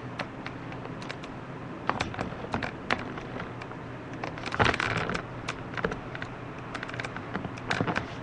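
A small Morkie dog moving and pawing about on bed covers: irregular rustles and light scratching clicks, with a longer rustle about halfway through. A steady low hum runs underneath.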